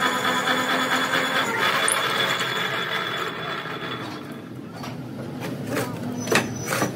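Drill press running with a large twist drill cutting into a metal trunnion saddle seat casting: a steady machine whine over a grinding cutting noise. About halfway through the cutting noise drops away, and a few sharp clicks and knocks follow near the end.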